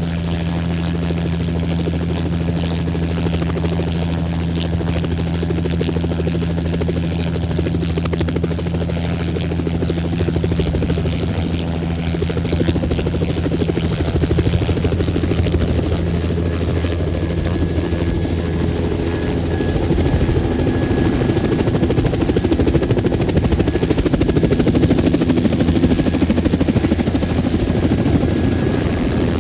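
Helicopter running steadily, a low rotor drone with a rougher layer that swells about halfway through and grows louder near the end.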